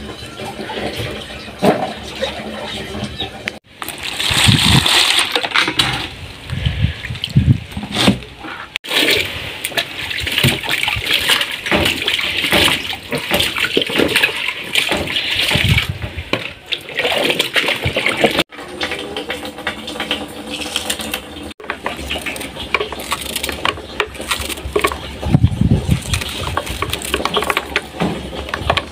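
Water sloshing and splashing in a plastic basin as peeled potatoes are washed and rubbed by hand, with water poured between basins. The sound breaks off abruptly several times.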